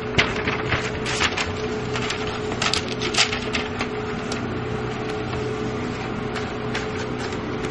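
A sheet of tracing paper rustling and clicking as it is fed by hand into a Canon LBP2900 laser printer, with the handling noises bunched in the first half, over a steady low hum.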